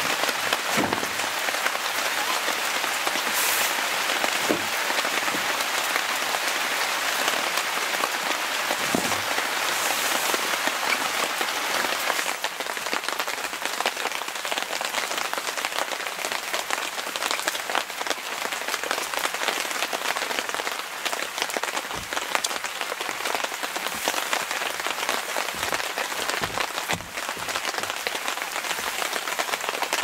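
Steady rain falling, a dense hiss with many separate drops ticking through it; it thins slightly about twelve seconds in. A few soft low thumps sound under the rain in the first ten seconds.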